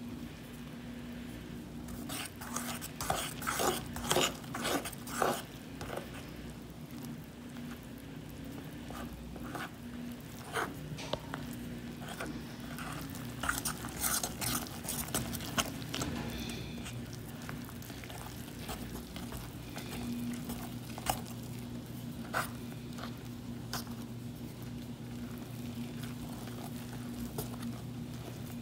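Fork stirring wet dough into flour in a ceramic mixing bowl: irregular scraping and clicking of the fork against the bowl, busiest a few seconds in and again around the middle, over a steady low hum.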